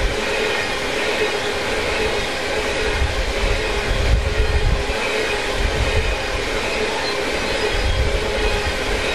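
A train rolling past: the steady, continuous rumble and rattle of rail cars on the track.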